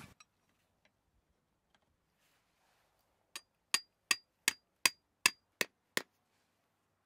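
A hammer with a steel head and wooden handle strikes a metal tent stake, driving it into the ground. There are eight sharp, slightly ringing taps, about two and a half a second, starting a little over three seconds in.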